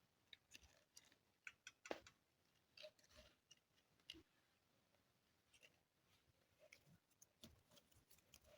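Faint, scattered clicks and light taps of small plastic toy pieces being handled, the sharpest click about two seconds in.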